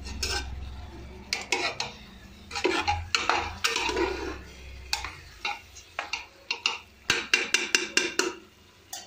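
Spatula knocking and scraping against the side of a steel pressure cooker as raw chicken and masala are stirred together, in quick irregular clanks that come thicker in the second half.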